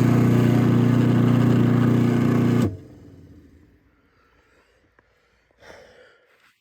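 Craftsman 1/2 hp chain-drive garage door opener motor running with a steady hum, then cutting off abruptly a little under three seconds in as the door reaches the end of its travel.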